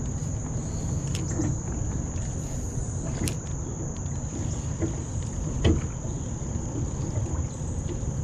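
Small aluminium boat under way on a river: a steady low rumble, with a steady high-pitched insect drone over it. A few light clicks from a spinning reel being handled, about every two seconds.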